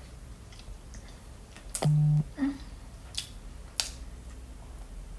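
Eating fruit close to the microphone: a few sharp wet clicks and squishes, with a short loud low hum about two seconds in.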